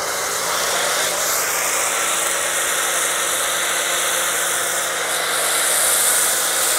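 Kärcher electric pressure washer's motor and pump running steadily under load with the hiss of a foam cannon spraying. The load is a 1.1 mm orifice at about 1300 PSI. A faint high whine sits in the middle, and the spray hiss gets brighter near the end.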